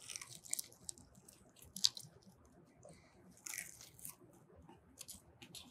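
Two people biting into and chewing sauced chicken wings: faint, scattered short crunches and mouth noises at irregular moments.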